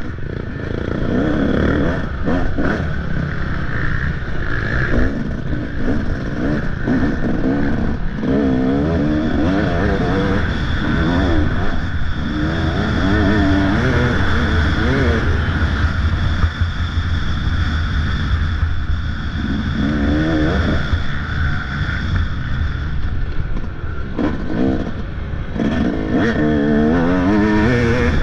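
Motocross bike engine revving up and down over and over as it is ridden around the track, its pitch climbing and falling with each burst of throttle, over a steady low rush of noise.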